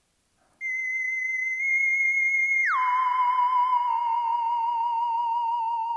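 Eerie theremin-style tone: a high note held from about half a second in, swooping down about an octave near the middle, then wavering with vibrato as it slowly sinks.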